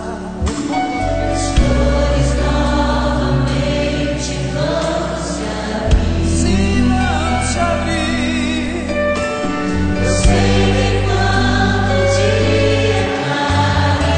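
Gospel song: singing with a backing choir over a band with sustained bass notes and occasional drum hits.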